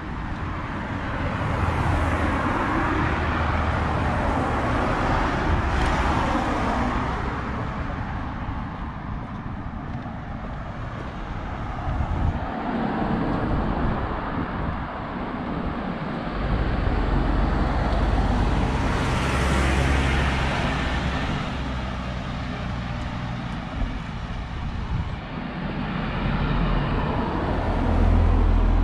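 Road traffic: several cars passing one after another on a town road, the tyre and engine noise of each swelling and fading as it goes by, over a steady low rumble.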